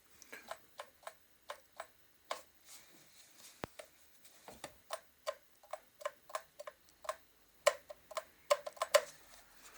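Irregular series of short sharp clicks and taps, two to four a second, from the plastic kettle and its parts being handled; the loudest cluster comes near the end.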